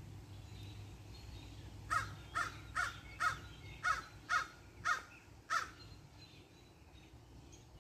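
Crows cawing: a run of eight short caws at about two a second, starting about two seconds in.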